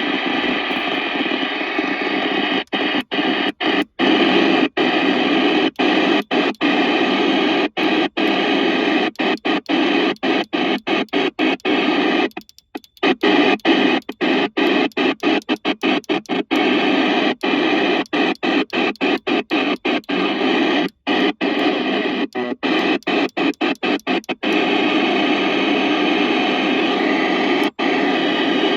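FM CB radio receiver hiss on the 27 MHz UK FM CB band, cut by many brief dropouts, with one longer gap about halfway.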